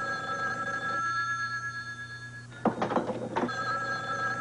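Black rotary desk telephone ringing twice: a long ring of almost three seconds, then a second ring after a gap of about a second. There are a few sharp knocks in the gap between the rings.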